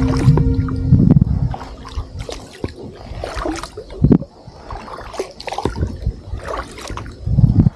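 Kayak paddle strokes splashing and dripping in lake water, irregular, with two louder knocks about four seconds in and near the end. Background music fades out in the first couple of seconds.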